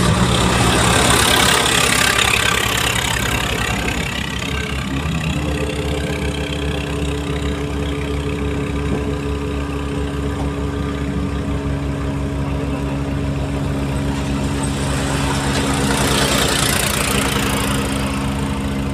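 A vehicle engine running steadily while driving, under tyre and wind noise. About five seconds in its pitch steps up, and there is a louder rush of noise near the start and again near the end.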